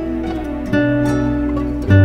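Background music: plucked string notes over sustained tones, a new notes struck about every second.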